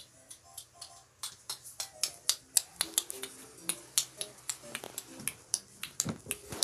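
Rapid, irregular sharp clicks or snaps, several a second, over faint music made of short held notes.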